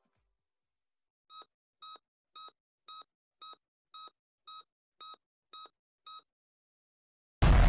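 Countdown timer beeping: ten short electronic beeps, about two a second, one for each number from ten down to one. A little over a second after the last beep, a sudden loud boom sets in near the end.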